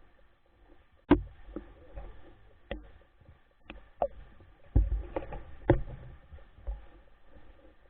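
Irregular clicks and knocks, about a dozen scattered strikes, several carrying a low thump, the strongest about a second in and just before six seconds in.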